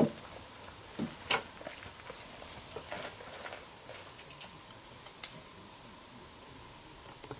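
A few sharp wooden clicks and knocks, spaced a second or more apart and the loudest right at the start, from a stick-built bow-saw frame being lifted and handled and its cord-and-toggle tensioner twisted.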